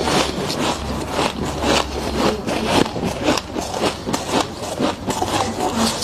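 Freezer frost crunching as it is chewed, close up: a quick, irregular run of crisp crunches several times a second.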